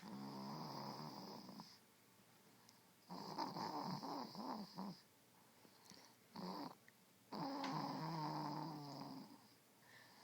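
Snoring in a slow rhythm: four snores, each one to two seconds long apart from a short one in the middle, with a thin high whistle sounding along with each.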